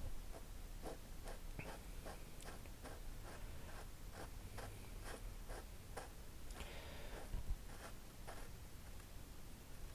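Faint, evenly spaced light clicks, about two or three a second, from hand work refitting a cap on a car's underside, with one slightly louder knock near the end.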